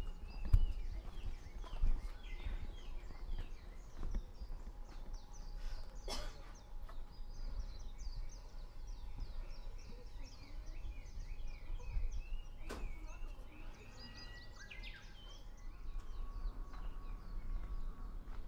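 Woodland birdsong: many quick, repeated chirps and twitters throughout, with a Japanese bush warbler (uguisu) singing among them, one long held note that breaks upward about fifteen seconds in. A few sharp thumps stand out over a low rumble.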